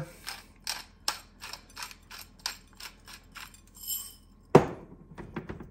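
Pepper grinder being twisted over the meat, a quick run of gritty clicks at about four a second, then a sharp knock about four and a half seconds in.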